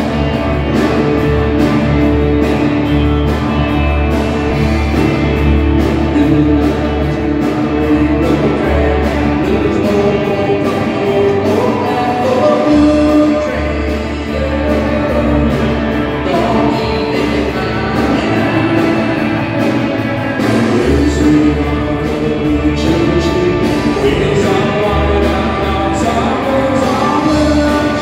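Live band playing a song: a singer over acoustic and electric guitars, bass and a drum kit keeping a steady beat.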